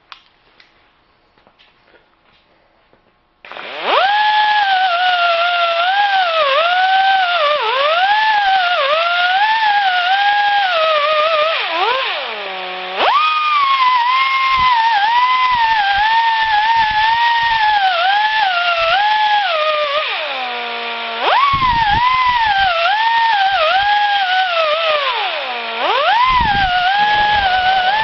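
Air-powered right-angle grinder with a 2-inch 80-grit sanding disc whining at high speed, its pitch dipping each time the disc bears on a chainsaw cutter as the teeth are touched up. It starts a few seconds in and twice briefly winds down and spins back up.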